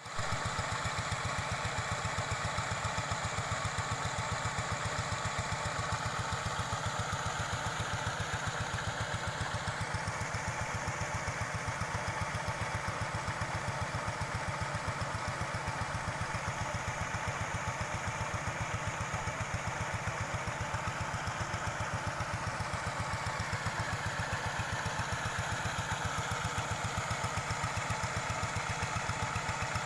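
Kubota RD80 single-cylinder diesel engine running steadily with an even, fast firing beat, driving a chain of paddlewheel aerators.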